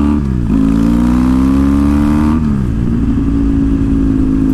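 Motorcycle engine, heard from the rider's seat, pulling up through the gears. The revs climb, drop at an upshift about half a second in, climb again, and after a second upshift about two and a half seconds in settle to a steady cruise.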